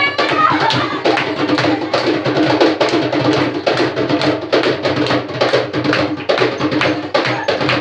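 Several hand drums struck by hand in a fast, steady rhythm, the strikes packed closely together with the sound of a crowded train carriage around them.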